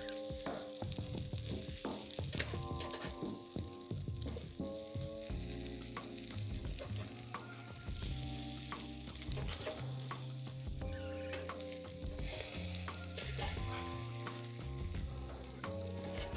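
Chicken pieces sizzling on a charcoal braai grill, with metal tongs clicking against the grate now and then as the pieces are turned. Soft background music with slow, held chords plays under it.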